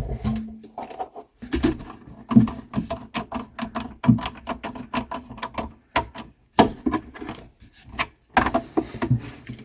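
Screws on a garbage disposal's discharge tube flange being tightened: a quick, irregular run of small clicks and knocks from the tool and the metal and plastic parts.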